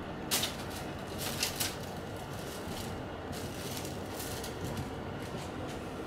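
Thin plastic bag crinkling in several short bursts as a cat paws at it, over the steady whoosh of an air purifier's fan.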